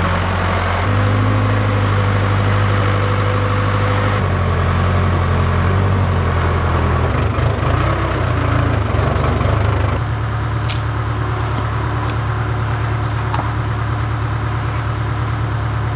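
Case 580K backhoe's four-cylinder diesel engine running. It is steady at first, its pitch shifts about in the middle, and it settles to a steady, slightly quieter run with a few faint clicks from about ten seconds in.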